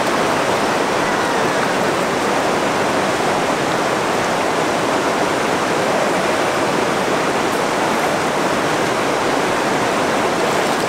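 Shallow, fast river running over rocks and cobbles: a steady, unbroken rushing of water.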